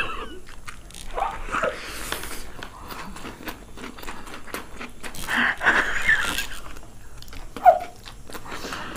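Two people slurping and chewing chow mein noodles straight off their plates with no hands, with wet smacking and clicking mouth sounds throughout and a few short vocal noises between bites.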